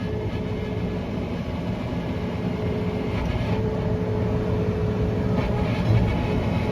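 Tractor engine running steadily under load as it pulls a round baler through the hay, heard from inside the cab, growing slightly louder toward the end.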